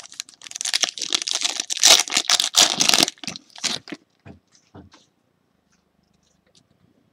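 Foil trading-card pack wrapper being torn open and crinkled for about three seconds, then a few faint clicks as the cards are taken out and handled.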